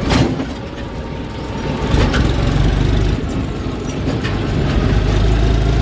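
John Deere tractor's diesel engine running, its low rumble growing louder about two seconds in, with a short knock right at the start. The silencer is refitted without packing, so some exhaust leaks at the joint.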